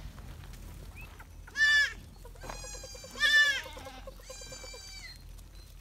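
Goats in a herd bleating: several separate bleats, the loudest about a second and a half in and again about three seconds in, one of them wavering.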